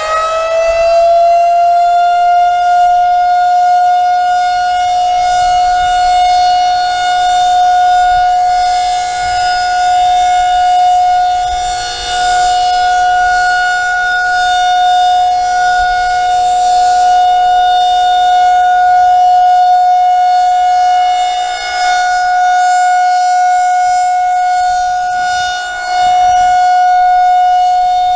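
Outdoor tornado warning siren sounding its monthly test. It finishes winding up to pitch in the first second, then holds one steady tone, its loudness dipping slightly a couple of times.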